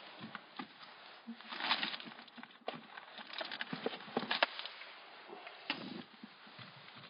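Irregular knocks, clicks and rustling of firewood and camp gear being handled, with a burst of rustling about one and a half seconds in and a run of sharp clicks around the middle.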